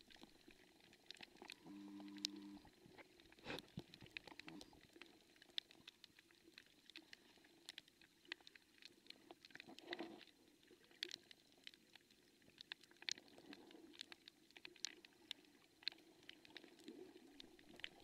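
Near silence, broken by faint, scattered short clicks and crackles, with a brief faint low hum about two seconds in.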